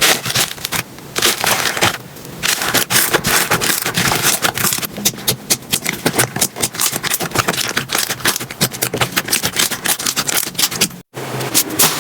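Slime being squeezed and pressed by hand, a dense, fast run of crackling clicks and pops, with a brief silence about eleven seconds in.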